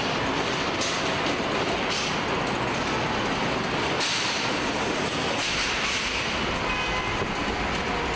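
Steady din of a truck assembly line: conveyors and plant machinery running together, with a few brief sharper noises.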